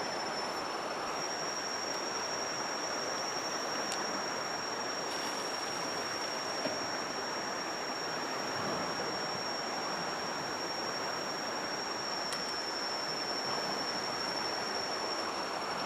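River water flowing steadily as an even rushing hiss, with a thin, steady high-pitched tone above it.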